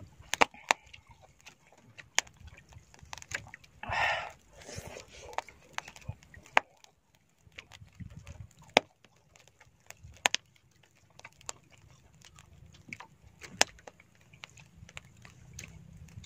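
Scattered sharp clicks and light taps from hands pulling apart small grilled squid on a wooden board, with a short breathy rush about four seconds in.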